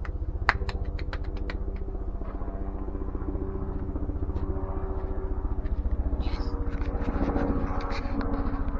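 A small engine running steadily, with a few sharp clicks and knocks about half a second in and again near the end.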